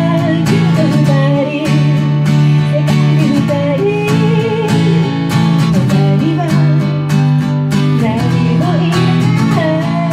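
Song performed on strummed acoustic guitar, with a singing voice carrying a wavering melody over the chords.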